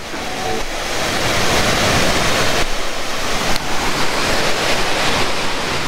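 Steady rush of a waterfall on a rocky river, an even noise with no breaks.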